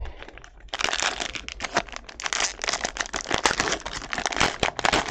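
Plastic wrapping on a box of football trading cards crinkling and tearing as it is ripped open, a dense run of crackles starting about a second in.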